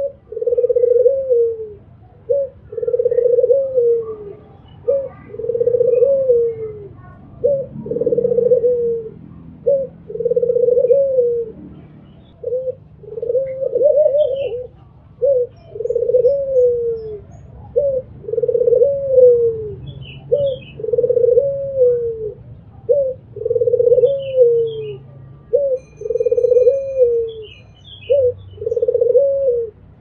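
Albino puter (Barbary dove) cooing repeatedly, about one phrase every two seconds, each a short note followed by a longer coo that falls at its end. Faint high chirps from small birds come in now and then in the second half.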